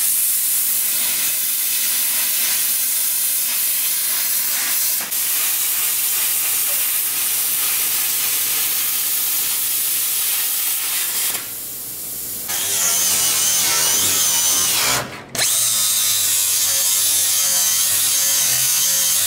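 Angle grinder with a cut-off wheel cutting through the sheet-steel transmission tunnel of a Mazda Miata body shell, a steady high grinding. It eases off for about a second around two-thirds of the way through, stops for an instant a little later, then runs on with a higher whine.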